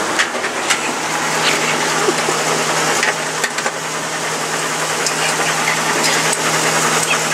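A machine running steadily, with a constant low hum over a noisy whirr and scattered sharp clicks.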